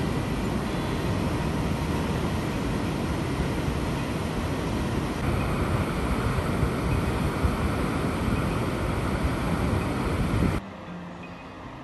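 Water rushing out of a dam's outlet into the river below, a steady rushing noise, with wind buffeting the microphone. It cuts off suddenly near the end.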